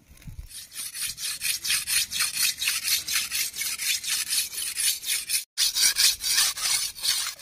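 A steel machete blade being sharpened on a wet rock: a fast, steady run of grating strokes, about four a second, broken for an instant about three-quarters of the way through.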